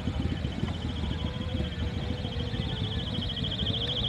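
Wind rumbling on the microphone, with a high-pitched, rapidly pulsing buzz that grows louder in the second half.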